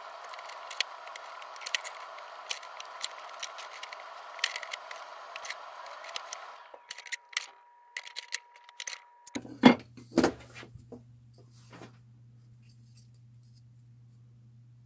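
Clicks, taps and light scrapes of a metal lathe faceplate and a 3D-printed plastic part being handled and fitted together, with two louder knocks about ten seconds in.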